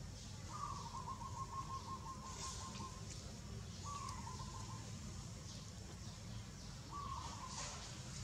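Three drawn-out animal calls, each held at one steady pitch: the first about two and a half seconds long, the next two about a second each, over a faint outdoor hiss.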